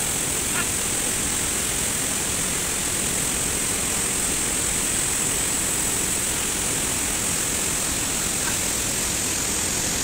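Steady rush of whitewater rapids in a fast river.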